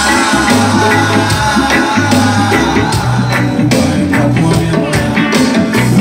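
Live reggae band playing an instrumental passage between sung lines: electric guitars, bass and drum kit, with a steady bass line under regular drum and cymbal strokes.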